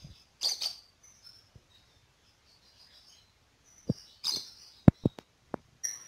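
Caged lovebirds giving short high-pitched chirps in two bursts, one about half a second in and one just after four seconds in. Several sharp clicks fall between about four and five and a half seconds.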